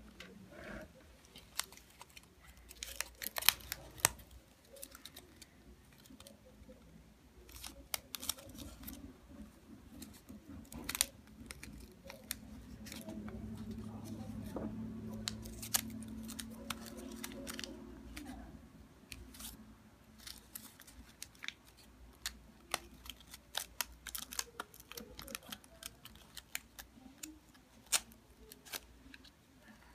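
Stiff folded origami paper rustling, crinkling and clicking as the petal units are handled and pressed together, in irregular sharp snaps. A faint low hum runs for several seconds midway.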